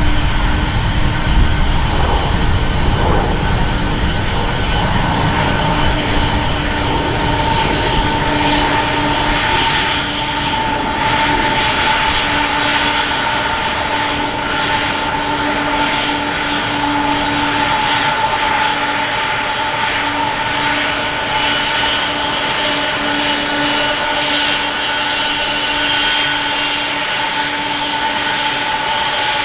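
Twin jet engines of a Boeing 767 turning at low power as the airliner taxis, a steady engine hum with several held tones over a rushing noise.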